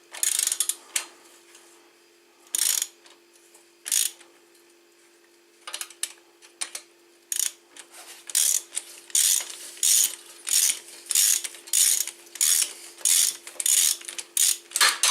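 Ratchet wrench clicking as a tight engine mounting bolt is undone: a few separate strokes at first, then a steady run of ratchet strokes about two a second from about halfway.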